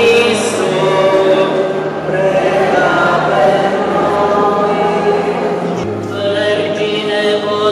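A choir of voices singing a slow sacred chant together, with long held notes that change every second or so.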